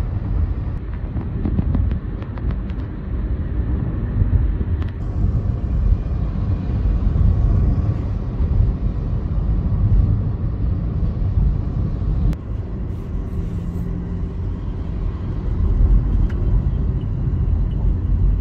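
Road and engine noise inside a moving car's cabin: a steady low rumble of tyres on the expressway, with a few faint clicks about two seconds in.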